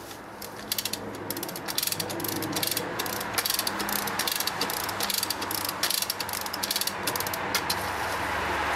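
Ratchet and pawl of a 3-ton pull lift (lever hoist) clicking in rapid runs as it is cranked, drawing a webbing sling tight under load.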